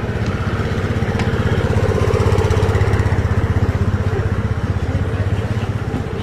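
An engine running with a fast, even pulse, growing louder about two seconds in and easing off again.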